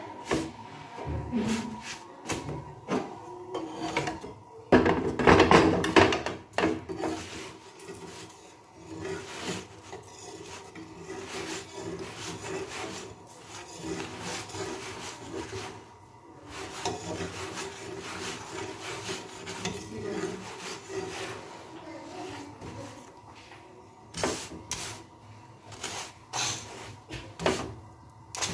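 Roti being pressed and turned on a flat iron griddle (tawa) with a hand and a metal spatula: irregular scraping and rubbing with small clicks of metal on the pan. The loudest scraping comes about five seconds in, and there are a few sharper strokes near the end.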